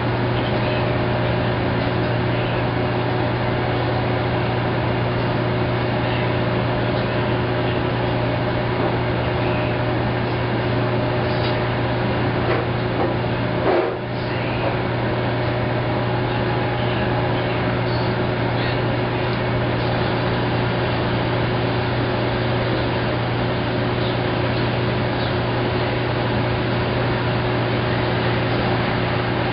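Maytag SoftMount commercial washer running: a steady, unbroken machine hum with a constant low drone, with one brief louder sound about halfway through.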